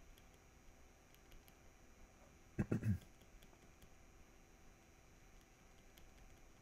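Faint, scattered taps and clicks of a pen stylus on a drawing tablet during sketching, with one brief louder low sound about two and a half seconds in.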